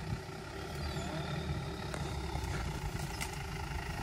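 Engine of an off-road 4x4 pickup truck running at low revs as it creeps toward the edge of a steep bank above a mud pit, a steady low rumble that grows a little louder about a second in.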